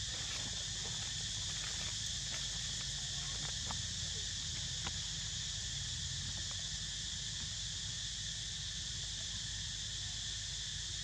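Steady, high-pitched drone of an insect chorus, unbroken throughout, over a low steady rumble, with a few faint scattered clicks.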